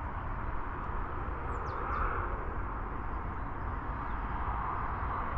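Steady outdoor background noise with a low rumble of wind on the microphone, and a couple of brief high bird chirps about a second and a half in.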